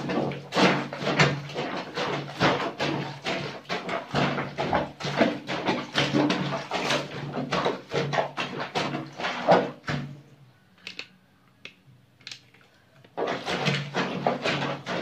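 Soapy wet laundry being scrubbed and squeezed in a plastic basin of water: repeated wet sloshing and squelching, about three strokes a second. It stops for about three seconds some ten seconds in, then resumes as the clothes are trodden underfoot. A faint steady low hum runs underneath.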